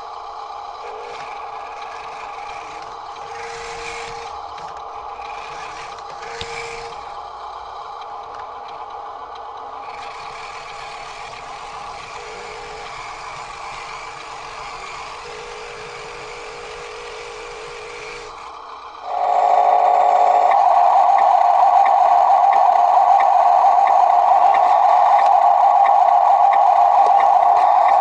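Electronic sound effects from a toy RC dump truck's sound module: a steady synthesized engine hum with short repeated beeps. About 19 seconds in it jumps to a much louder steady drone with a regular ticking.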